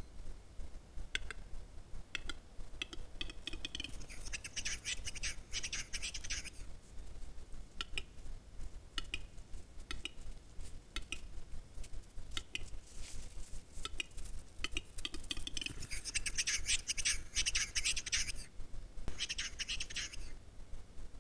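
Western capercaillie cock singing its lekking display song: spaced dry clicks that speed up and run into a few seconds of hissing, scraping 'whetting'. The song comes round again, with two long whetting phases and a shorter one near the end.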